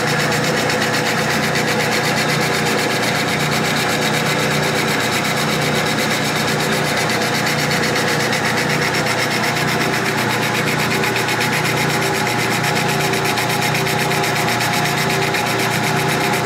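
Metal lathe running steadily while a turning tool faces a steel blank held in a four-jaw chuck, the cutting sound over the constant hum of the motor and gears.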